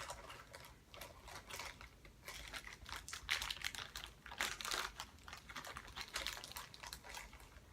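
Small plastic toy parts and their packaging being handled: irregular light clicks, taps and rustles as compartments are opened and pieces taken out.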